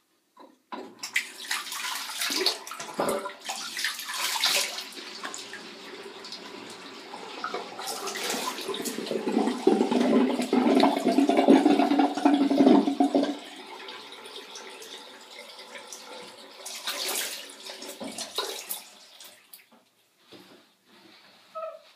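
Tap water running into a sink with splashing. It starts about a second in, is heaviest in the middle and stops a couple of seconds before the end.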